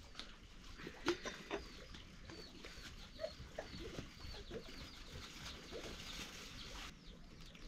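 Faint chirping of birds: many short, high calls scattered throughout.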